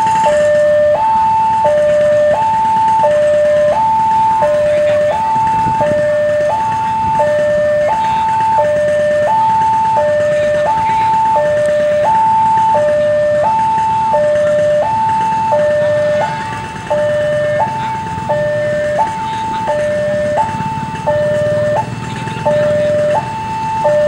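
Railway level-crossing warning alarm sounding a loud two-tone signal, alternating high and low notes about once a second, because the crossing has closed for an approaching train. A low rumble from the approaching diesel locomotive builds in the second half.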